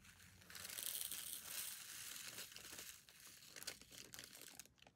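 Small clear plastic bag of diamond painting drills crinkling as it is squeezed and tipped over a storage pot, followed by a few light ticks.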